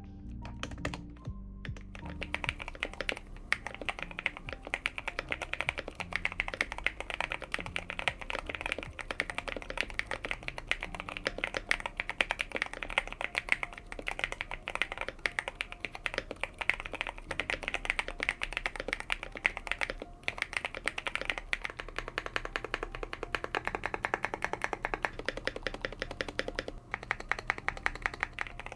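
Continuous fast typing on an Epomaker TK68 gasket-mounted acrylic mechanical keyboard, fitted with hand-lubed Tecsee Purple Panda tactile switches and modded with tape and memory foam for a deeper 'thocky' sound. It starts with a few scattered keystrokes, then becomes a steady stream of clacks about two seconds in. Quiet background music plays underneath.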